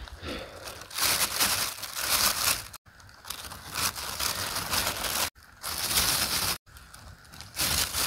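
Thin plastic bag crinkling and rustling in repeated bursts as it is handled, with the sound cutting out abruptly for an instant several times.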